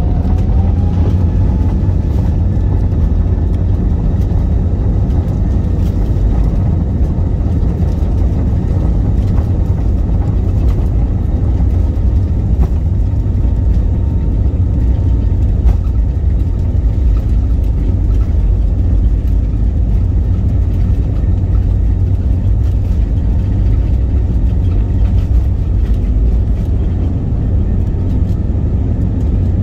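Jet airliner's engines at takeoff power during the takeoff roll, heard from inside the cabin as a loud, steady roar with a deep rumble. A whine climbs briefly in the first second.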